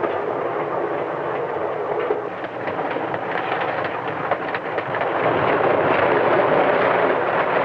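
Passenger train running at speed: a steady rumble with the clatter of wheels on the rails, growing louder about five seconds in.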